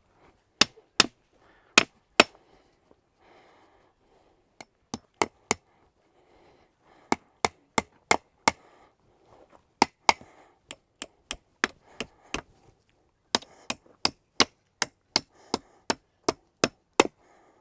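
Hammer driving nails into a wooden fence post: about forty sharp strikes in quick runs of blows with short pauses between them, tacking a brace piece in place so it can't spring back.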